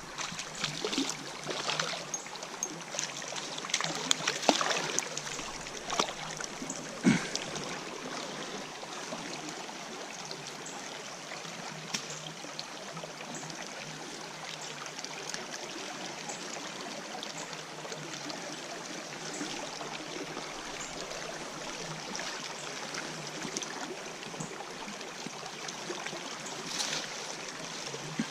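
Steady rushing of flowing river water, with a few sharp clicks and knocks in the first several seconds.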